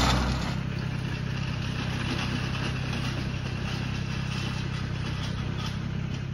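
Compact tractor engine running steadily as it pulls a rotary tiller, its level falling about half a second in and then holding steady.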